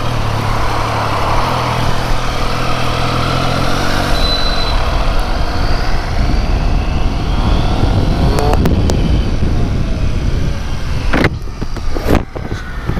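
Triumph Street Triple's three-cylinder engine running, a steady low drone at first that gives way to a broad, even rush of noise; a few sharp knocks after the middle and near the end.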